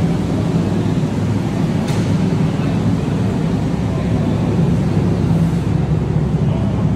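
A steady, loud, low mechanical rumble that does not change over the few seconds.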